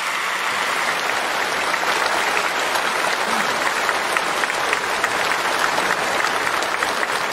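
A large seated audience applauding steadily, many hands clapping together in a dense, even patter.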